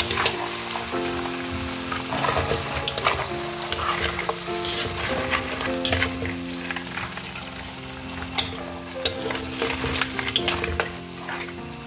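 Crab pieces sizzling as they are stir-fried in a pan, with a metal spatula knocking and scraping against the shells and the pan many times. Soft piano music plays underneath.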